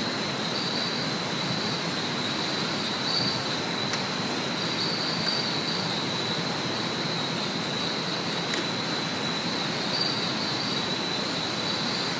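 Steady background hiss with a constant high-pitched whine, and a couple of faint clicks.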